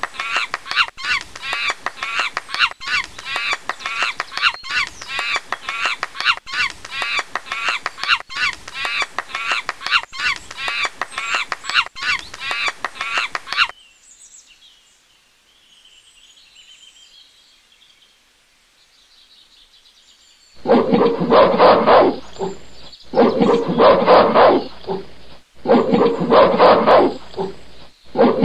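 Recorded animal calls played as sound effects. A fast, regular run of high chirping calls, about two a second, stops suddenly about fourteen seconds in. Faint, high bird-like twittering follows, then from about twenty seconds in come loud, lower calls in bursts of about two seconds each.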